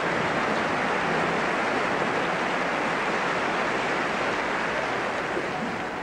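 Large audience applauding steadily, a dense even clapping that eases slightly near the end.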